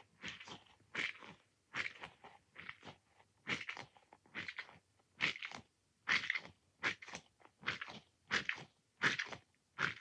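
Squishy toy ball squeezed over and over close to the microphone, giving short squelching squishes about two or three times a second.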